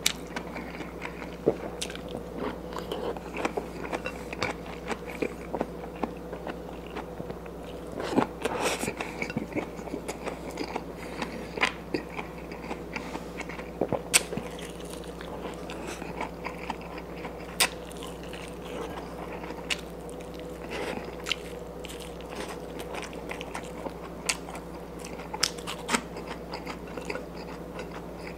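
A person chewing and eating with his hands, with scattered short clicks and taps throughout, over a faint steady hum.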